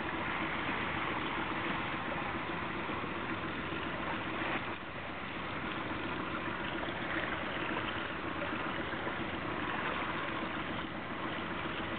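Small boat's engine idling steadily under a wash of water noise.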